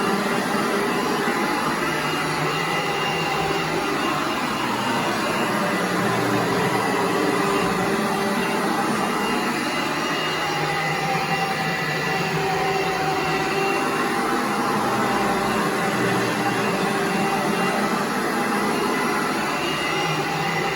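A household electric appliance motor whirring steadily and loudly, switched on just before and off just after, with a faint wavering hum.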